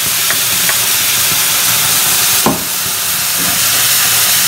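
Ground spice paste sizzling loudly in hot oil in a kadhai, a dense steady frying hiss, with one sharp knock about halfway through.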